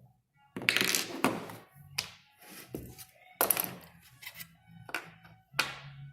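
Small steel parts of a wire-stitcher head being handled and set down on a workbench: a run of sharp metallic clinks and knocks, about eight in six seconds, some ringing briefly, the loudest about a second in and again near three and a half seconds.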